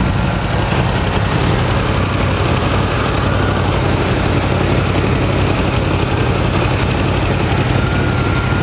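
1978 Chevrolet Camaro engine idling steadily, heard up close over the open engine bay.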